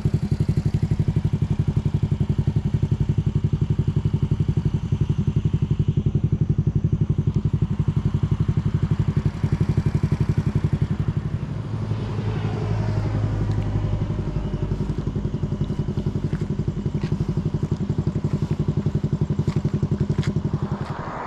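Small step-through motorcycle engine running steadily while riding slowly, with a fast, even pulse. A deeper hum joins briefly a little over halfway through.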